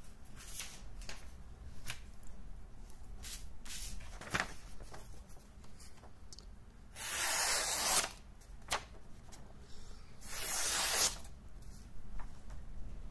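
PEGASI fixed-blade knife slicing through a sheet of paper twice, each cut a noisy swish lasting about a second, the first about seven seconds in and the second about ten seconds in. Shorter rustles and clicks of the paper and blade being handled come before.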